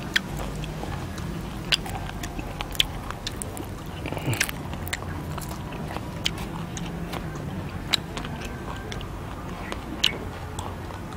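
Crunching and chewing of large fried crickets, with sharp, crisp crackles at irregular intervals as the crispy insects and their wings break.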